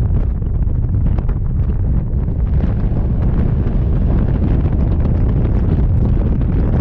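Wind buffeting the microphone of a rider on a moving Vespa scooter: loud, steady, low-pitched noise that covers everything else.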